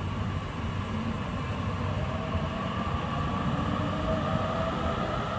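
Electric train moving on the tracks through a station, a steady rumble of wheels on rail with a faint whine that rises slightly in pitch in the second half.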